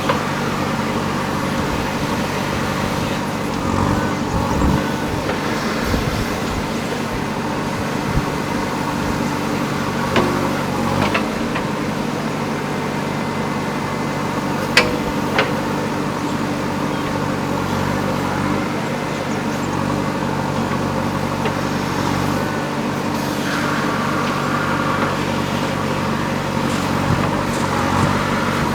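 JCB backhoe loader's diesel engine running steadily as the machine works, its note swelling at times. A few sharp knocks stand out over it.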